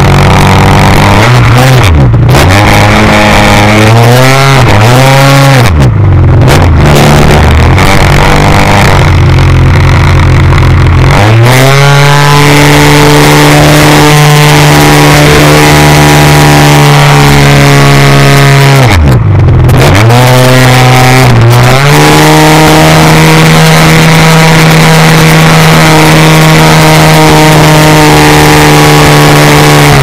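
Engine of an Ultimate aerobatic model plane, heard very loud from an onboard camera with wind rush over it. Its pitch drops and climbs back three times in the first few seconds and again about two-thirds through as the throttle is cut and reopened during manoeuvres; in between it runs steadily at high throttle.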